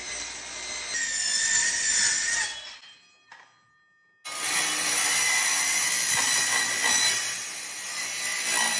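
Handheld circular saw cutting through the sheet-steel roof panel of a Mercedes Sprinter van with a steady grinding whine. The cut tails off about three seconds in, and after about a second of quiet the saw starts again and keeps cutting.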